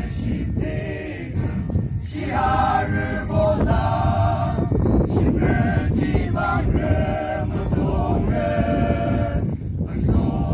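Group of men singing together in held phrases with short breaks between them, accompanied by an acoustic guitar.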